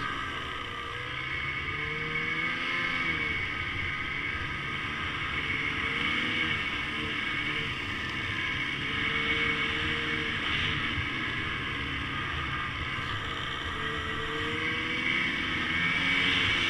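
Ski-Doo Summit 850 E-TEC snowmobile's two-stroke twin engine running under way, its pitch rising and falling with the throttle every few seconds.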